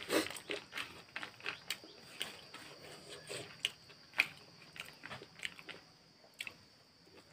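Close-up chewing of crisp puffed rice (muri) mixed with ghugni, with irregular crunches. Fingers scrape and scoop the dry puffed rice on a banana leaf.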